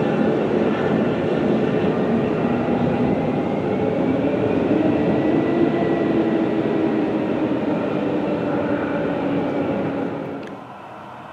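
Airliner engines running loud and close, a steady rush with several held and slowly gliding tones, cutting off sharply near the end.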